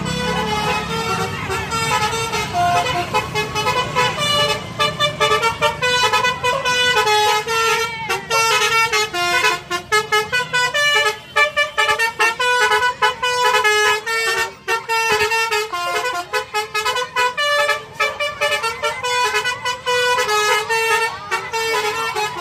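Indonesian bus 'telolet' basuri horn playing a tune: a rapid run of stepping multi-tone notes that keeps going, over a low engine rumble that fades in the first couple of seconds.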